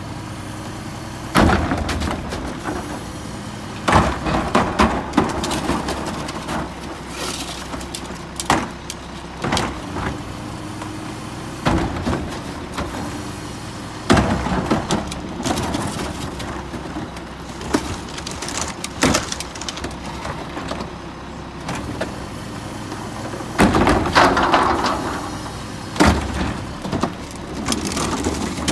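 Mack LE garbage truck's diesel engine idling steadily while plastic wheeled carts are hand-dumped into its front carry can: irregular sharp bangs and thumps every few seconds as carts and lids knock against the can, with a few longer clattering stretches of trash tumbling in.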